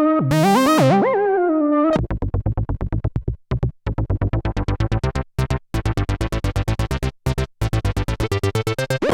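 Roland SE-02 analog monophonic synthesizer playing a held note with a wobbling, swooping pitch, then, about two seconds in, a fast sequenced run of short staccato notes with a few brief gaps.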